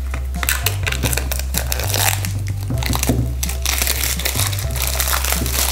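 Clear plastic shrink wrap crinkling and crackling as it is torn and peeled off a cardboard phone box, over background music with a steady bass line.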